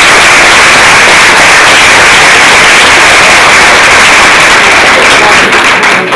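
Loud audience applause, a dense steady clapping that stops near the end.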